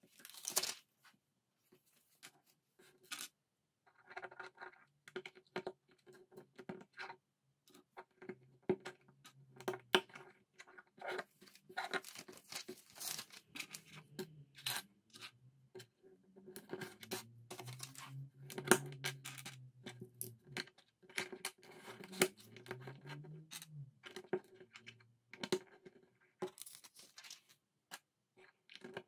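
LEGO pieces clicking and clattering: loose plastic bricks picked from a pile on a table and pressed together, many irregular sharp clicks with short quiet gaps between.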